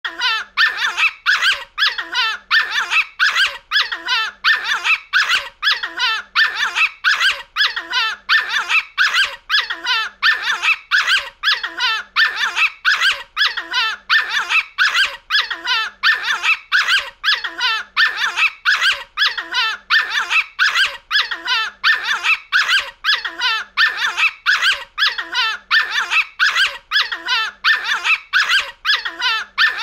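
Small pinscher giving high-pitched, squeaky barks and yelps, about two a second without pause: a stressed, agitated little dog.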